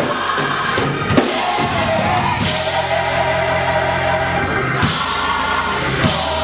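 A choir singing with a band, a drum kit beating under them with cymbal crashes every couple of seconds; from about halfway in the chords are held long.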